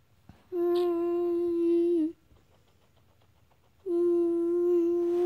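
A voice humming two long, steady notes on one pitch, each about a second and a half, with a short pause between, like a mock train horn.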